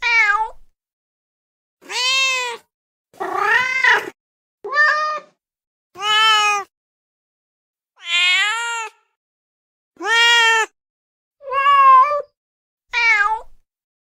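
Domestic cat meowing nine times, each meow under a second long and rising then falling in pitch, about one to two seconds apart with dead silence between.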